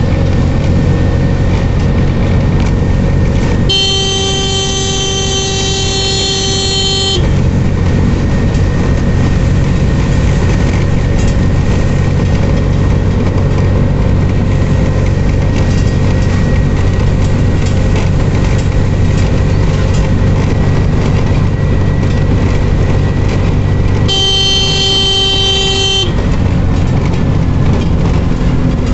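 TVS King 200cc LPG three-wheeler's engine running steadily as it drives, heard from inside the open cab. The horn sounds twice with a steady tone: a long blast of about three and a half seconds near the start and a shorter one of about two seconds near the end.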